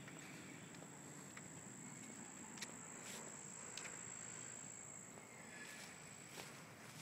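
An insect's steady, high-pitched trill over faint outdoor hiss, weakening near the end, with a couple of soft clicks.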